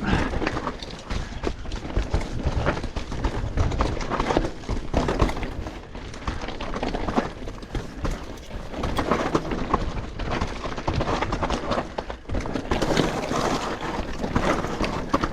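Mountain bike descending a rough dirt trail: tyres running over dirt and roots, with the chain and frame rattling in a constant, irregular clatter of knocks over the bumps.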